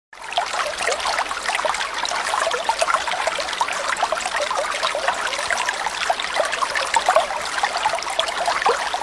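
Water trickling and bubbling steadily, a dense patter of small quick bubbling sounds; it starts and stops abruptly.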